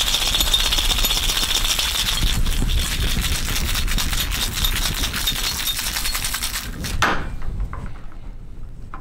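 Ice rattling rapidly inside a metal cocktail shaker during a vigorous shake, stopping about seven seconds in, followed by a brief knock.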